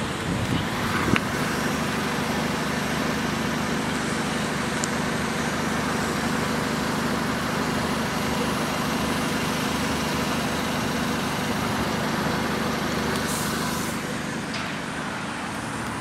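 Mazda 3's 1.6-litre four-cylinder engine idling steadily, heard close to the tailpipe at the rear of the car.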